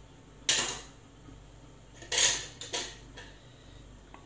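Kitchenware scraping and knocking: a steel ladle against a ceramic bowl of broth. There are three short scrapes, the loudest about two seconds in.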